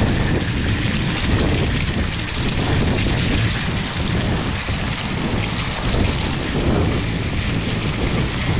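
Heavy rain falling, with a steady low rumble of wind buffeting the action camera's microphone.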